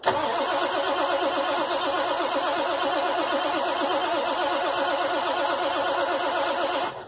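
Ford pickup's diesel engine cranking on the starter in 15 °F cold with steady rhythmic pulses, turning over but not catching, then stopping abruptly near the end. It will not fire because a sticking glow plug relay left the glow plugs unheated, and it blows white smoke of unburnt fuel.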